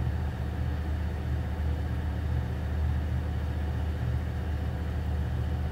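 A steady low background hum, unchanging, with no other sound.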